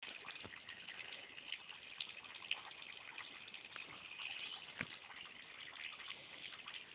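Creek water running: a steady, light rushing hiss, with a few faint ticks.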